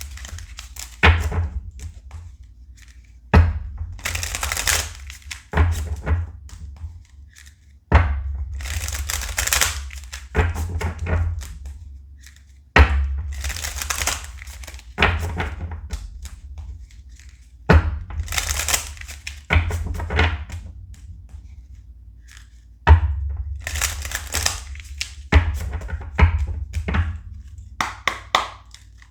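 A tarot deck being shuffled by hand, over and over: rasping swishes of cards sliding through each other, each round marked by a sharp knock and a dull thump of the deck, about every four to five seconds.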